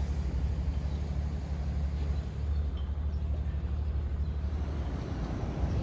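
Sailboat's engine running steadily under way, a constant low throb.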